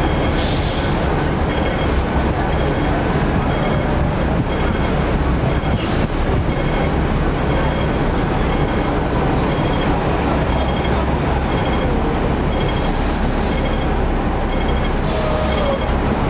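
Electric double-decker tram running along its rails, a steady loud rumble heard from the upper deck. A faint high beep repeats about twice a second through most of it, and a few short hissing bursts come and go.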